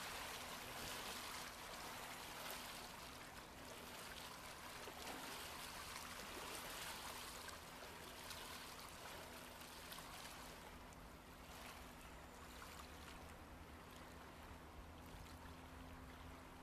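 Faint riverside ambience: an even wash of water-like noise with a steady low hum underneath.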